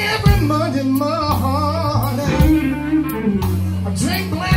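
Live blues band: a man singing with a wavering vibrato over electric guitar and held low bass notes, with a steady beat.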